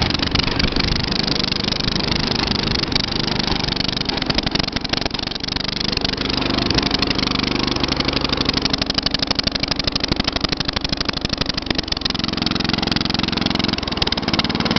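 A 13 horsepower Briggs & Stratton Intech engine on a racing lawn tractor running loudly under way, its note shifting a few times as the speed changes.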